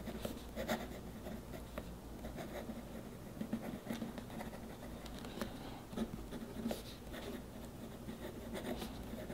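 Steel fountain-pen nib of a Sheaffer 330 writing on smooth Rhodia paper: faint, irregular scratching of pen strokes forming letters.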